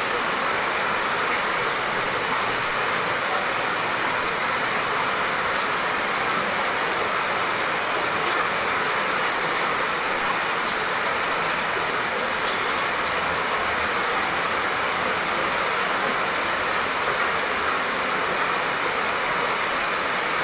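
Light, steady rain falling: an even hiss, with now and then a faint tick of a single drop.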